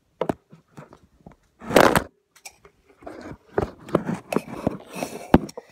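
Handling noise from a phone camera being moved and set down: scattered knocks and scrapes, a loud rustling burst about two seconds in, a run of rustling and knocking after that, and a sharp knock near the end.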